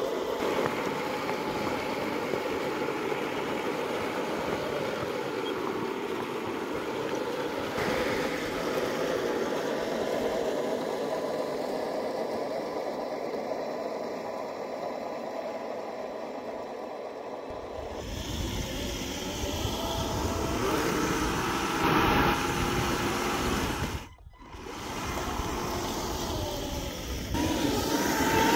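1/10 scale radio-controlled Jagdpanther tank model driving over snow, its running gear making a steady mechanical drone. About 18 s in the drone turns fuller and louder. It dips out briefly about 24 s in.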